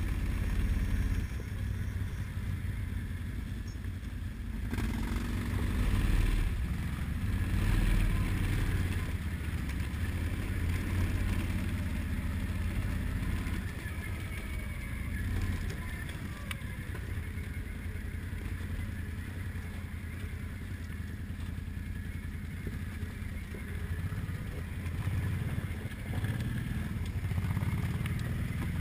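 Quad ATV engine running at low speed while riding along a gravel trail, a steady low drone that rises and falls a little in level.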